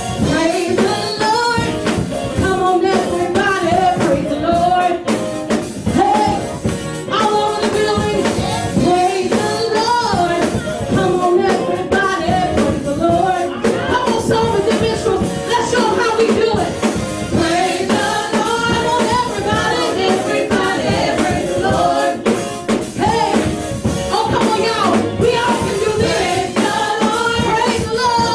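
Gospel praise and worship music: several voices singing together over a band with steady percussion.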